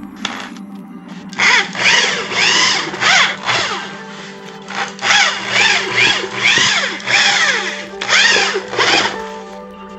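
Electric drill triggered in quick short bursts, about two to three a second, each whine rising and falling in pitch, over background music.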